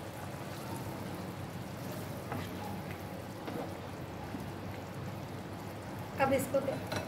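Rajma (kidney-bean curry) simmering and bubbling in a pan while a spoon stirs it, a steady wet bubbling with a few soft ticks.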